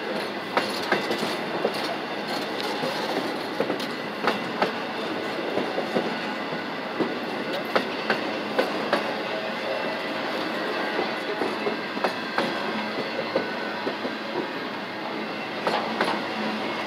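Freight train of container well cars and boxcars rolling past at close range: a steady rumble of steel wheels on rail, broken by irregular sharp clicks and clanks as the wheels cross rail joints.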